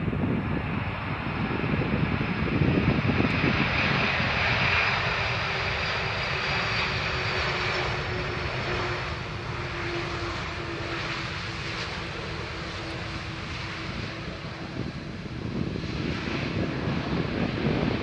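Boeing 747-400 freighter's four jet engines on the landing roll: a steady rush of engine noise, loudest a few seconds in, easing off, then swelling again near the end.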